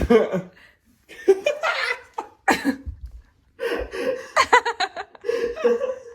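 People laughing in several bursts, with chuckles and breathy snickers.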